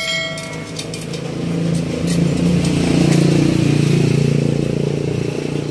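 A motor vehicle passing on the highway, its engine growing louder for a few seconds and then fading.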